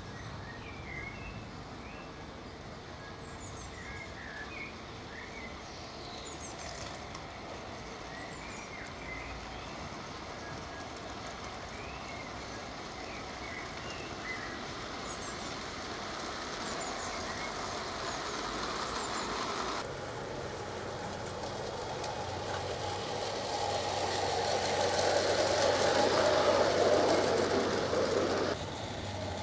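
Gauge 1 model goods train running along garden track, its wheels rolling over the rails, growing louder to a peak about three quarters of the way through and then cutting off sharply near the end. Small birds chirp in the first half.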